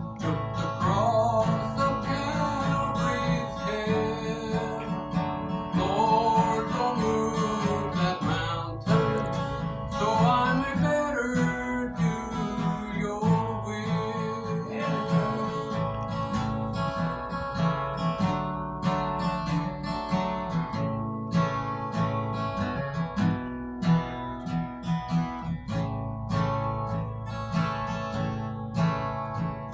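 Acoustic guitar strummed and picked in a steady rhythm, playing a gospel tune, with some notes sliding in pitch.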